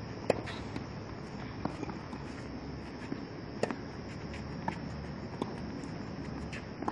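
Tennis rally on a clay court: a string of sharp pops from racket strings striking the ball and the ball bouncing, roughly one a second, the loudest about a third of a second in and about three and a half seconds in.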